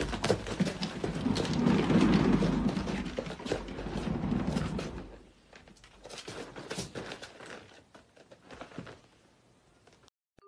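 Scrabbling, rustling and knocking as a cat moves about on a hard floor against a pet bed, busiest in the first half, then only a few faint clicks.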